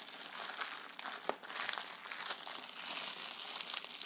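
Plastic bubble wrap crinkling and rustling as it is squeezed and turned in the hands around a wrapped bottle, with scattered sharp crackles, one louder about a second in.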